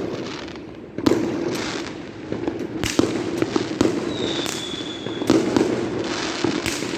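Fireworks going off: sharp bangs every second or two with crackling between them, and a high whistle lasting about a second, about four seconds in.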